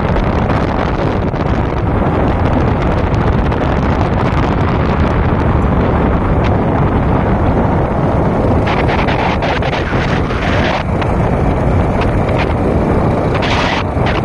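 Wind rushing over the microphone from a moving vehicle's window, with road and vehicle noise underneath. It is a loud, steady roar of noise, with a brighter hiss joining in for a couple of seconds past the middle and again briefly near the end.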